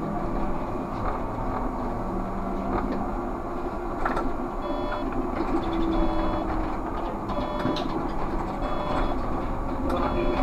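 Škoda 30Tr SOR trolleybus running along the street, heard from the cab: steady road noise with the whine of the electric traction drive gliding in pitch. From about halfway, a short electronic beep repeats roughly once a second.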